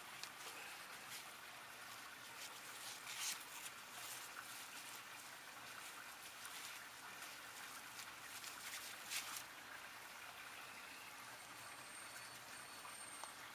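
Faint, steady trickle of water, with a few short sharp ticks and splats scattered through it.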